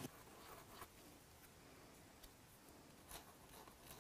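Near silence: room tone with a few faint, light clicks and taps.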